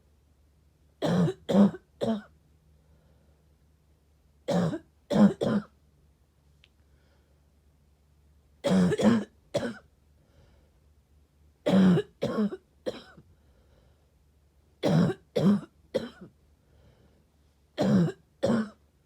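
A sick person coughing in short fits of two or three coughs, a fit about every three seconds.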